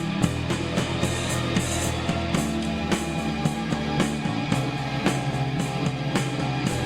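Instrumental rock music: guitar over a steady drum beat, with no vocals.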